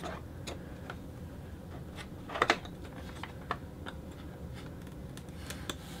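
Light clicks and taps of an iMac's power supply circuit board knocking against the computer's case as it is lifted out, with a sharper tap near the middle.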